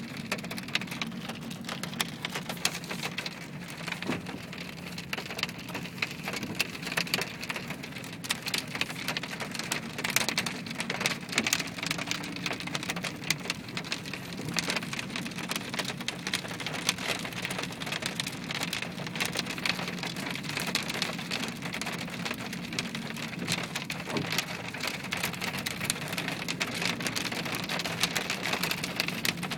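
Hail coming down hard: a dense, irregular clatter of hailstones striking, over a steady hiss.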